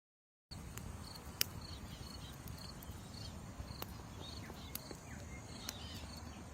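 Crickets chirping in short high chirps about twice a second, with a few sharp clicks.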